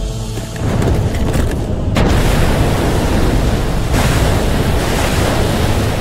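Animated sound effect of an iceberg breaking apart and collapsing into the sea: a deep rumble builds, then from about two seconds in a loud, steady rushing crash of falling ice and water spray, with a fresh surge about four seconds in.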